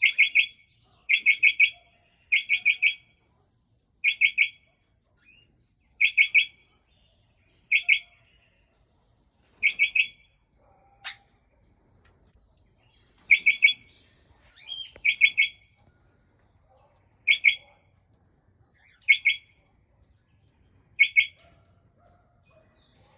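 Port Lincoln parrot (Australian ringneck) calling: groups of two to four quick, high notes, repeated every one and a half to two seconds, with a gap of a few seconds about halfway.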